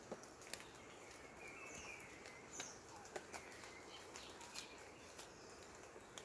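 Quiet forest ambience: faint bird chirps recurring every second or so, with a few light clicks and rustles.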